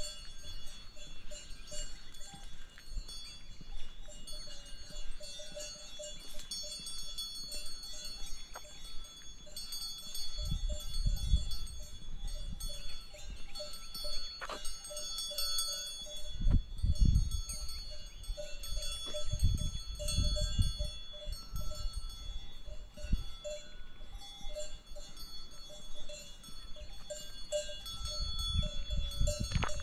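Bells worn by grazing livestock clanking irregularly and continuously, many overlapping metallic tones. A few bursts of low rumble come through in the second half.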